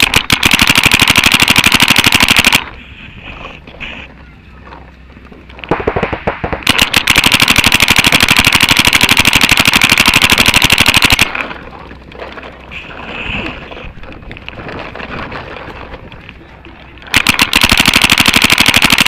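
Paintball markers firing rapid, even strings of shots in three long loud runs, the longest about five seconds, with quieter scattered shots in the gaps between.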